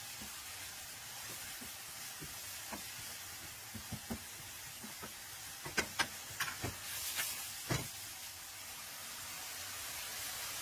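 Spaghetti and artichokes sizzling gently in a nonstick frying pan over a gas flame, a steady hiss, with a scatter of light clicks and knocks from the wooden fork stirring against the pan, mostly in the middle of the stretch.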